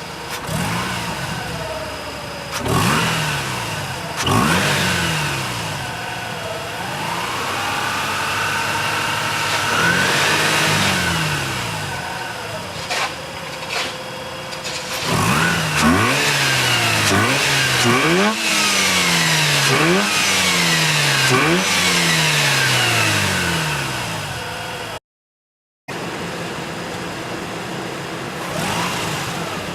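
Mazda RX-8's two-rotor Renesis Wankel rotary engine revved with the car standing still. Rises and falls in pitch give way to a high rev held for a few seconds, then a run of quick blips past the midpoint. The sound cuts out for about a second near the end, and the engine then runs more steadily.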